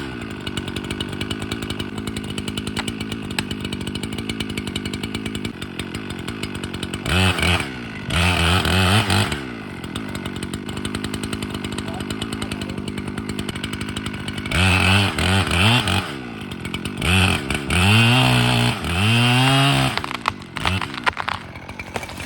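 Chainsaw engine idling with a rapid steady pulse, throttled up in several bursts of revving that rise and fall, about seven seconds in, again around fifteen seconds and for a longer stretch near the end.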